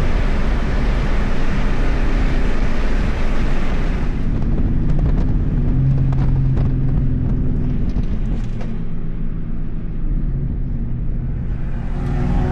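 BMW M340i's turbocharged straight-six running hard, with a loud rush of wind and road noise. About four seconds in it eases off, with scattered clicks and pops, and near the end the engine note rises again.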